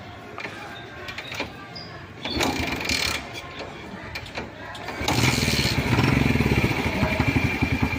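Kawasaki Bajaj CT100 single-cylinder motorcycle engine being started after work on its weak ignition primary coil. A short cranking attempt comes about two and a half seconds in. The engine catches about five seconds in and runs with a rapid, even beat.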